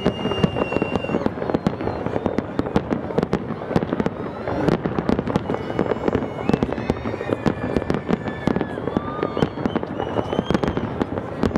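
Large aerial fireworks display: many shells bursting in quick succession, a dense, continuous run of overlapping bangs and crackles with no pause.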